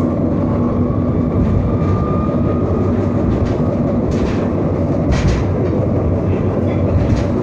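Tram running, heard from inside the car: a steady rumble of wheels on rails with a faint motor hum, and a couple of short clacks about four and five seconds in.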